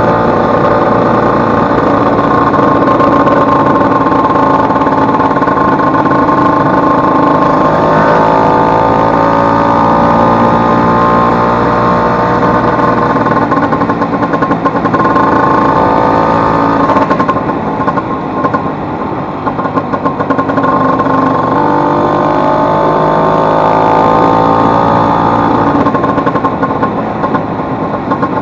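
Vespa 150's two-stroke single-cylinder engine running under way on the road. Its pitch rises and falls with the throttle, easing off about seventeen seconds in and climbing again a few seconds later. It runs smoothly after the broken elastic pinion that had caused a loud engine noise was replaced.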